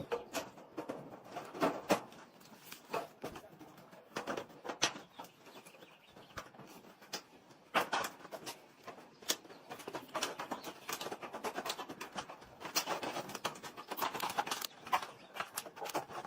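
Irregular clicks and knocks, with a bird calling.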